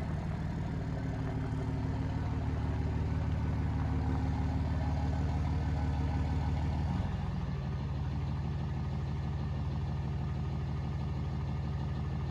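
Chevrolet Duramax 6.6-litre V8 turbodiesel idling steadily, its note dropping slightly about seven seconds in.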